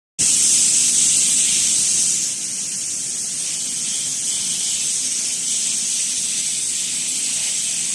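Steady high-pitched hiss from machinery on a bottled-water production line, a little louder for the first two seconds or so.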